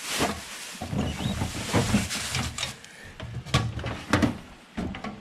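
Rummaging through tools and supplies: irregular knocks, clicks and rustling as objects are moved and handled.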